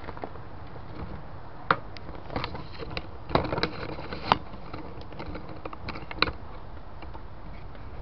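Irregular light clicks and knocks, about seven spread over several seconds, from small objects being handled and set down.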